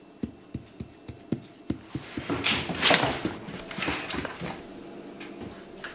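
German shepherd's claws and paws clicking on a tile floor as it walks, a quick irregular run of taps, followed by louder breathy sniffing in the middle.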